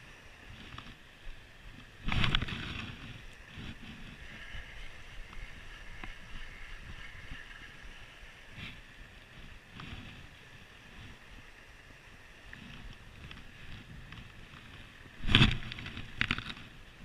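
Wind rumbling on the microphone of a body-worn camera, with two loud knocks from handling, about two seconds in and near the end.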